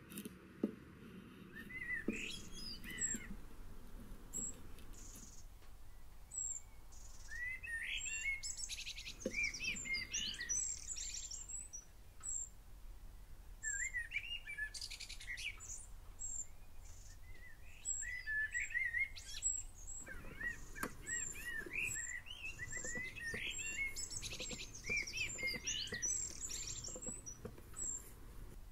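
Songbirds singing: phrases of quick, high chirps that come again every few seconds.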